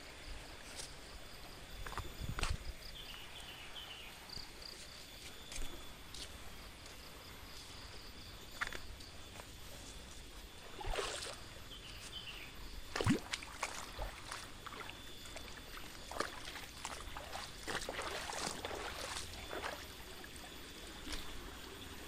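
Shallow stream trickling over stones, with irregular steps, scuffs and knocks of someone walking on the rocks and gravel beside it; the loudest knocks come about two and thirteen seconds in.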